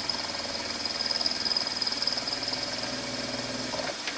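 Milling machine running while an end mill takes a final light pass on the end of a connecting rod, bringing its wall to thickness. A steady high whine sits over a lower motor hum, and the lower hum drops away shortly before the end.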